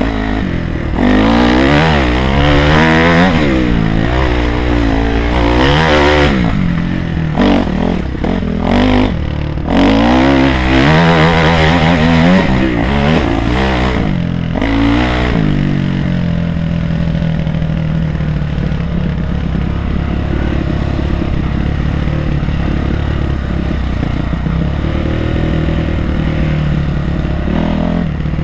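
Honda CRF250R's single-cylinder four-stroke engine, recorded onboard while riding, revving up and down again and again as the throttle is worked. About halfway through it settles to a steadier, lower note.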